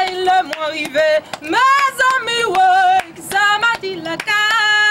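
A woman singing a Haitian traditional song solo, holding and bending long notes, with sharp slaps of her hands on her chest keeping a beat about twice a second.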